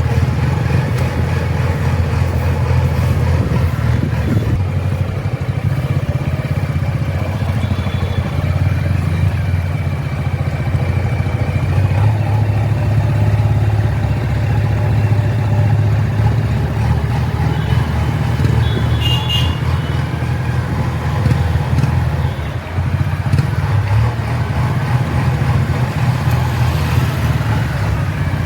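JCB 3DX backhoe loader's diesel engine running steadily at a low, even pulse with no clear revving. A brief high-pitched sound comes about two-thirds of the way through.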